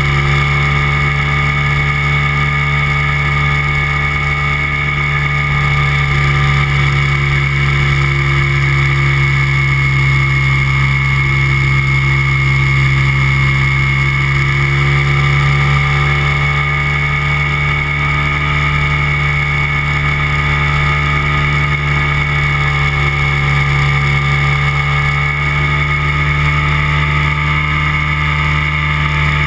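Weight-shift microlight trike's engine and propeller droning steadily in flight, with small shifts in pitch.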